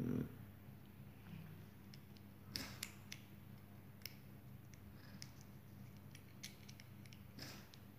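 Faint scattered clicks and small knocks as a 9-volt battery is pressed into its snap connector and the leads are handled, a few clicks close together around three seconds in and another near the end, over a low steady hum.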